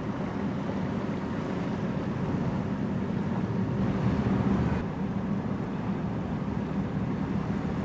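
Steady low rumble of a container ship passing on the river, with wind buffeting the microphone. The higher hiss thins out about five seconds in.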